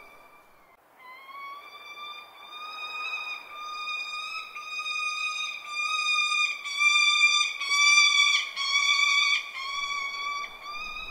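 Falcon calling: a long, near-continuous string of high-pitched whining notes, each under a second with short breaks between. The calls start about a second in and are loudest toward the middle.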